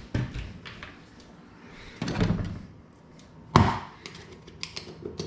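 Kitchen handling sounds: a few sharp knocks, the loudest about three and a half seconds in, a brief scraping rustle around two seconds in, and light clicks near the end.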